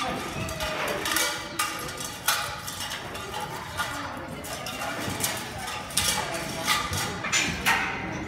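Commotion in an indoor bull-riding arena just after a rider is thrown: people calling out while the loose bull runs off, with sharp clanks and knocks coming every second or so.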